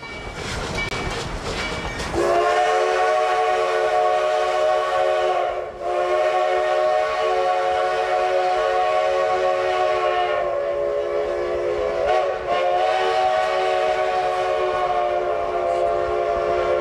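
Amtrak diesel locomotive horn sounding a multi-note chord in long blasts, with brief breaks about a third of the way in and again near three-quarters, over the rumble of the approaching passenger train. The horn's pitch dips slightly around the middle.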